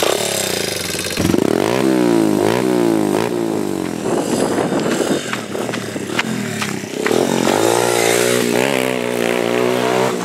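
Pit bike engine kick-started and catching at once, then revved in a series of quick rising-and-falling bursts as the bike rides off, with the revs climbing again near the end.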